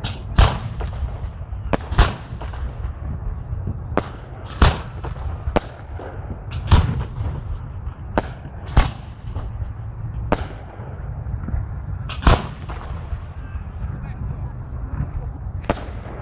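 Fireworks display: shells bursting with sharp bangs every one to two seconds, about ten in all, over a steady low rumble.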